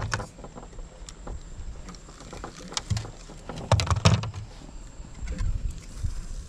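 Scattered clicks and knocks from a spinning rod and reel and other gear being handled in a small boat as a freshwater prawn is reeled in and taken in hand, with a cluster of sharper knocks about four seconds in, over a low rumble.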